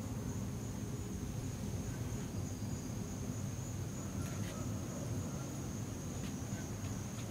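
Steady high-pitched insect buzz at a single pitch, like a cricket, over a low background rumble, with a few faint knocks about halfway through.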